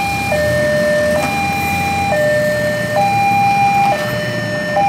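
Railroad level-crossing warning alarm sounding a two-tone hi-lo signal, switching between a higher and a lower tone a little less than once a second, over a low rumble.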